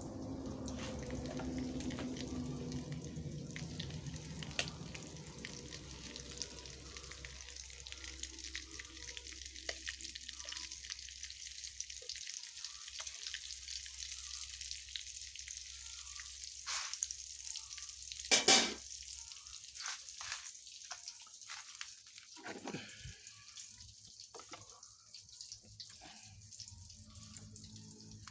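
Chicken frying in hot oil, a steady sizzle with scattered crackles and pops. Roughly two-thirds of the way through comes one louder, brief burst.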